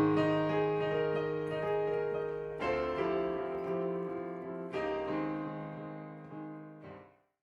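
Gentle piano music: a few sustained chords that die away, ending on a short final chord just before the audio cuts to silence.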